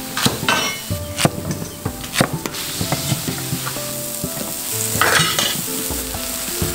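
A wok of tomato stew sizzling and bubbling hard, with a few sharp pops and clicks early on and a louder burst of crackling about five seconds in.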